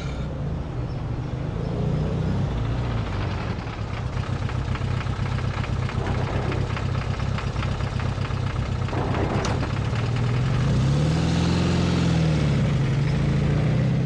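Volkswagen Type 2 bay-window bus's air-cooled flat-four engine idling with a steady low rumble, then revving up and back down near the end as the bus pulls away.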